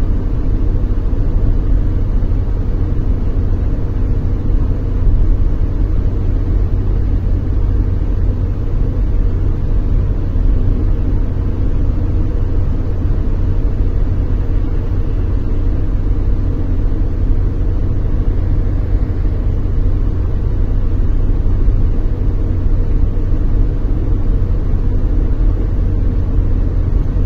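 Steady road and engine noise inside a car's cabin while driving on a highway, a constant low rumble of tyres and engine.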